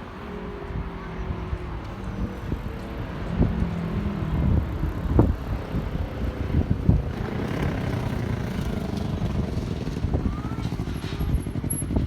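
Road vehicles running across a railway level crossing: engine hum and rumble that grows louder about four seconds in, with scattered sharp thumps.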